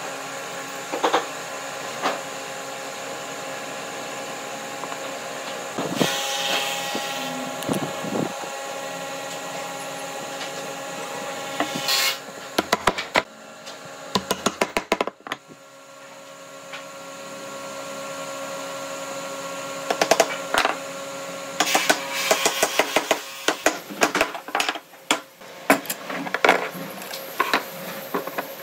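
Woodworking power tool motor running with a steady hum, under frequent sharp knocks and clatter of wood, in clusters about twelve seconds in and again from about twenty seconds on.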